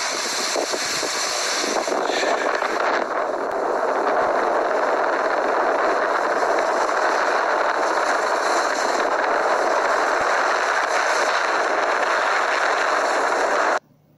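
Steady rushing noise of skiing downhill: skis hissing over the snow, with air rushing past the microphone. It cuts off suddenly near the end.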